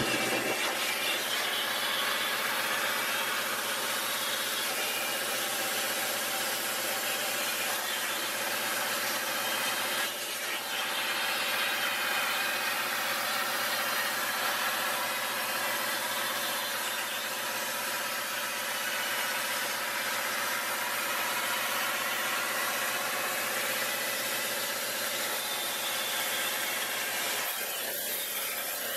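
Eastwood Versa-Cut 40 plasma cutter's arc cutting sheet metal on a CNC gantry: a steady hissing rush of the arc and compressed air, with a brief dip about ten seconds in. A faint low hum underneath stops near the end.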